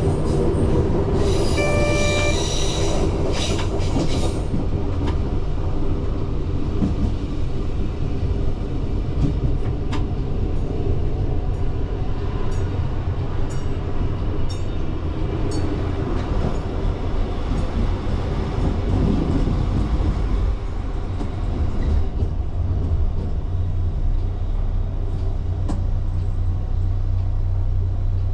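Alstom LINT 54 diesel railcar heard from its cab, running gear and diesel engine rumbling as the train slows into a stop, with a short pitched tone about two seconds in. In the last third the sound settles into a steady engine hum.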